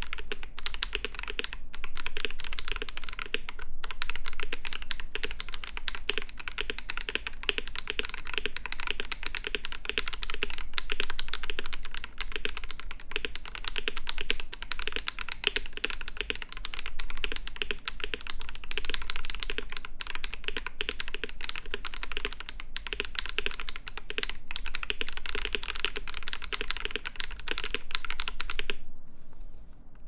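Fast, continuous typing on a mechanical keyboard fitted with Akko CS Ocean Blue tactile switches and GMK 8008 ABS keycaps: dense clacking keystrokes that stop about a second before the end.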